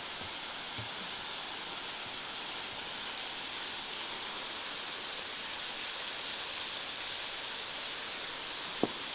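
Steady rushing hiss of a small waterfall pouring off a rock ledge and splashing onto the rocks below. One short knock comes near the end.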